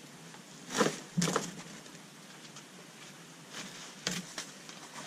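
Unboxing sounds: packaging being handled, a few brief rustles and scrapes of cardboard, styrofoam and plastic, the loudest about a second in and a few more near the end.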